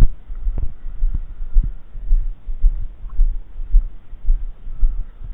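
Low, dull thumping about twice a second, with a few sharper knocks in the first two seconds and a faint steady high tone underneath.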